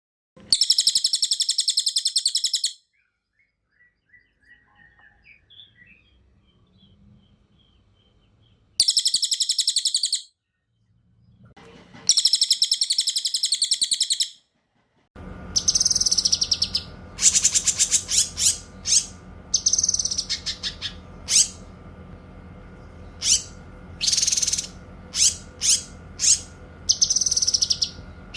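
Songbird song from a cililin and cucak kinoi tutor recording. Three long, fast, high-pitched trills come first, with faint chirps between them. About halfway through it switches to a stretch of short, sharp high calls and whistles over a steady background hum.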